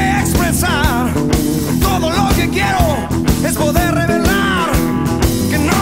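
Blues-rock band recording: a lead electric guitar plays a solo with string bends and vibrato over drums and bass.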